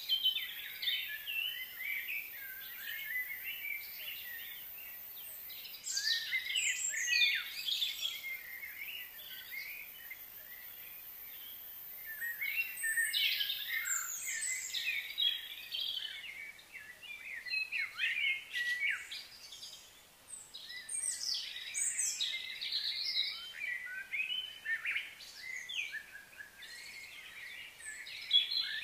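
Birds chirping and calling in busy, overlapping bursts of short high notes, with a couple of brief lulls.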